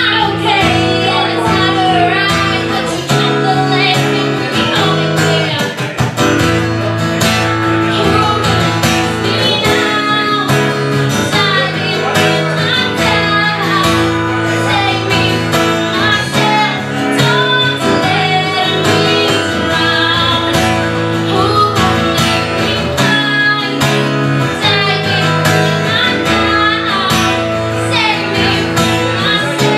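A woman singing into a microphone, with vibrato on held notes, over an acoustic guitar playing chords: a live acoustic voice-and-guitar performance.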